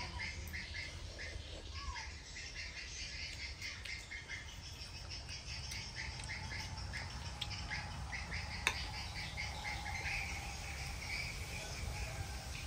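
Small birds chirping in the background, many short repeated chirps, over a low steady hum. A single sharp click comes about nine seconds in.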